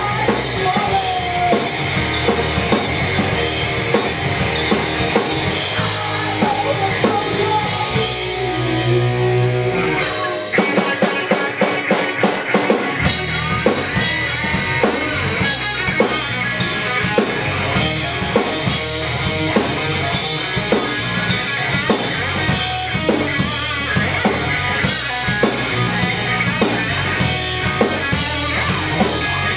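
Live rock band playing an instrumental section: electric guitar lead with bent notes over drum kit and bass guitar. About ten seconds in, the bottom end drops out for about three seconds, then the full band comes back in.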